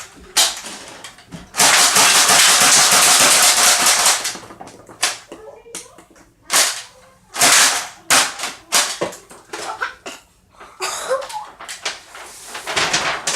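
Toy dart blaster firing again and again: a string of sharp, separate shots with a loud noisy stretch of about two and a half seconds early on.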